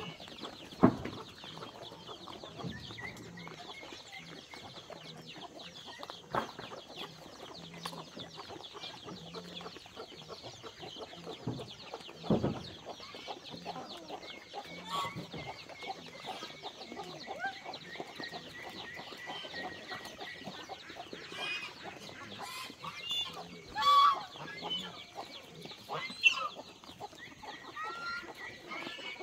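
Chickens clucking, with a few sharp knocks scattered through and a louder pitched call about 24 seconds in.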